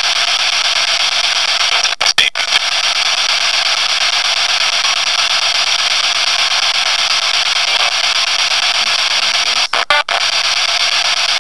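Loud, steady hiss of static or white noise, cut by two brief dropouts about two seconds in and near the end. The uploader takes the break near the end for a spirit voice saying 'Dear, remember'.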